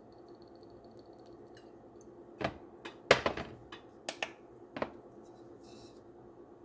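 A handful of sharp clicks and taps as a small extract bottle and a bowl are handled, bunched from about two and a half to five seconds in, the loudest just after three seconds, followed by a brief soft hiss.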